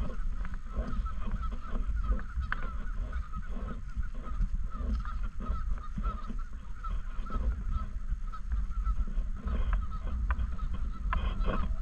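A flock of Canada geese honking: many short, overlapping honks without a break, over a low rumble.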